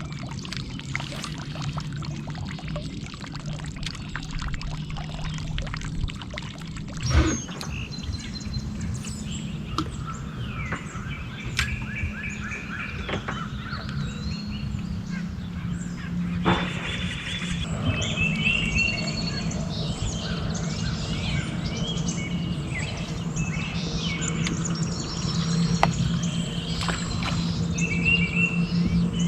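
Birds chirping and singing over a steady low hum, with a sharp knock about seven seconds in and another about sixteen seconds in.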